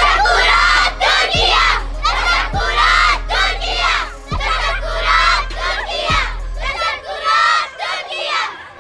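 A group of young girls shouting and cheering together, many voices at once.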